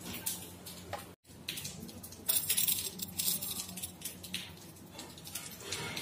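Dry muskmelon seeds clicking and rattling against a stainless steel tumbler, densest a couple of seconds in, after the sound drops out briefly about a second in.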